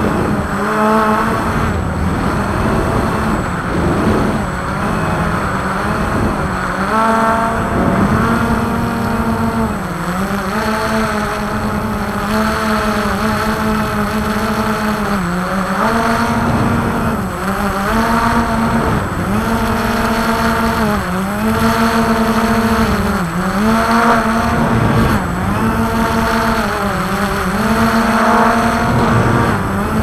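Multirotor drone's motors and propellers whining steadily, the pitch dipping briefly and recovering every couple of seconds as the motors adjust.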